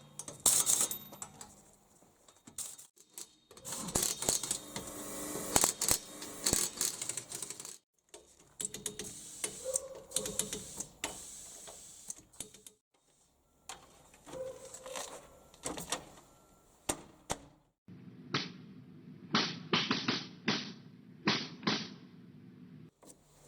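Irregular sharp clicks and knocks of tools at work on a car, heard in several short segments that cut off abruptly one after another.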